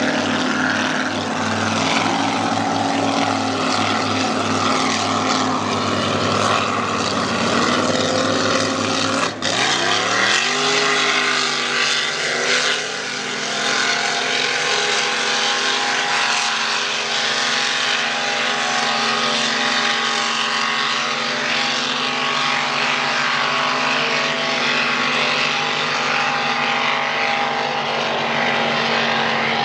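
High-horsepower racing boat engines running at full throttle: a loud, continuous drone. About nine seconds in the pitch sweeps upward, then holds steady.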